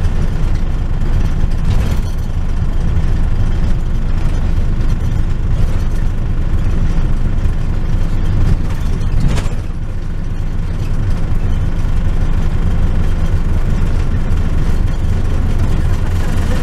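Minibus engine running steadily with road noise, heard from inside the cabin while it drives along, with a light knock about two seconds in and another about nine seconds in.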